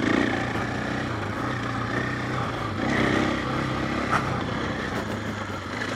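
KTM 500 EXC's single-cylinder four-stroke engine running while the dirt bike is ridden, its revs swelling twice, once near the start and again about halfway.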